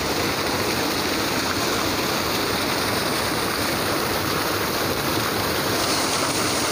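A river's water rushing steadily.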